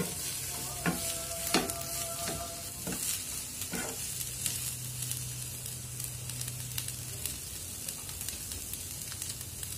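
Mixed vegetables sizzling as they are stir-fried in a non-stick frying pan, with a wooden spatula scraping and knocking against the pan a few times in the first four seconds.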